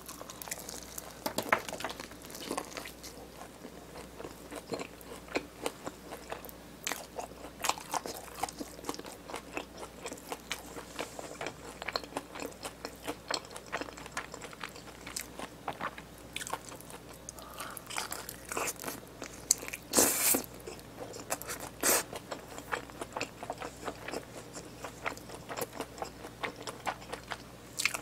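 Close-miked biting and chewing of a crispy seasoned fried chicken drumstick: many sharp crunches of the coating, the loudest about twenty seconds in.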